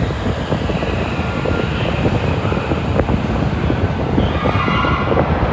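Toei Asakusa Line subway train running alongside the station platform at close range: a loud, steady rumble of wheels and running gear. A faint higher-pitched tone joins briefly near the end.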